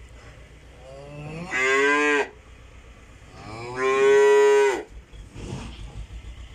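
Calves bawling: two long calls a couple of seconds apart, each starting low and jumping up to a higher held pitch, over a steady low hum.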